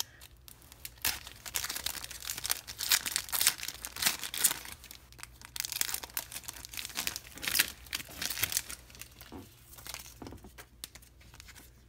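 Foil wrapper of a Pokémon trading card booster pack crinkling and tearing as it is pulled open by hand, in fits and starts that thin out near the end.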